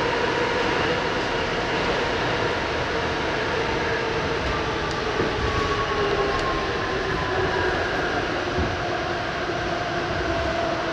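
Inside a moving R68 New York City subway car running through the tunnel: steady rumble of wheels on rail, with faint whining tones that slowly drift in pitch.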